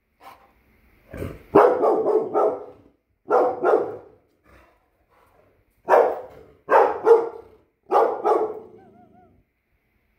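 Dog barking in repeated bursts of two to four sharp barks with short pauses between them: alarm barking at an unfamiliar object.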